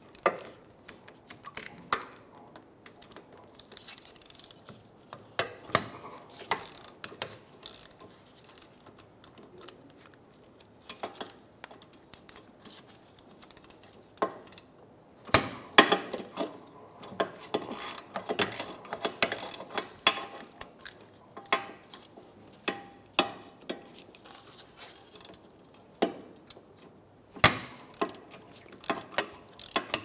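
Hand ratchet clicking and metal tools clinking as the 14 mm wheel bearing bolts on a rear hub are turned out. The clicks come in scattered runs, thickest about halfway through and again near the end.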